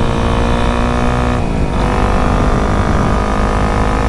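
Honda CRF250L's single-cylinder four-stroke engine running under way. Its pitch dips briefly about a second and a half in, then picks back up.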